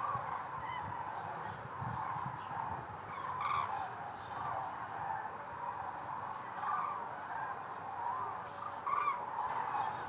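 Common cranes in a large migrating flock overhead, many birds calling at once in a continuous chorus of trumpeting calls that rises and falls.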